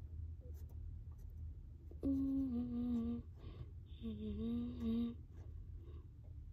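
A person humming two short phrases, the first about two seconds in and the second about four seconds in, each lasting a little over a second, over a faint low steady background hum.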